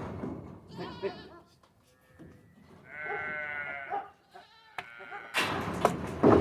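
Sheep bleating: a short wavering bleat about a second in, then a longer, stronger bleat around the middle. Loud noise cuts in abruptly near the end.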